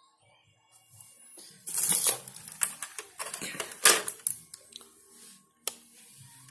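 A flurry of rattling and clicking from objects being handled, loudest about two and four seconds in, then one sharp click near the end; faint music underneath.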